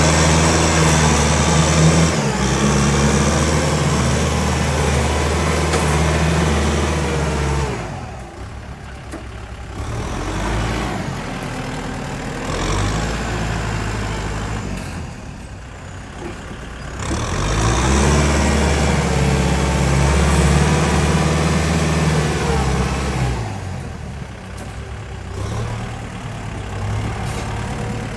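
Heavy diesel engine of earthmoving machinery working under load. It runs loud for several seconds, drops back, comes up again about two-thirds of the way through, then eases off.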